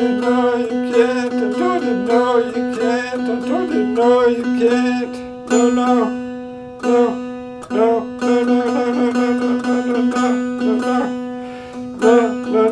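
Cigar box diddley bow played with rapid, repeated plucks on one unfretted note, which rings as a steady drone under the attacks. The playing breaks off briefly a few times and starts again.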